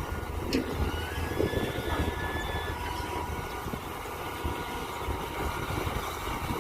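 Mini excavator's diesel engine running steadily as it digs, with thin high whining tones over the low rumble and a sharp knock about half a second in.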